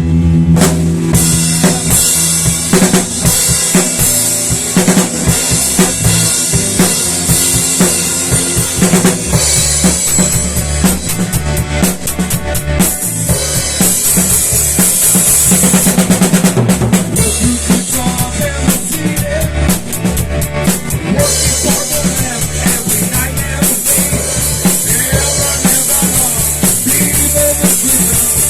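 Instrumental rock music led by a full drum kit: kick drum, snare and cymbals in a steady beat over bass, with no singing.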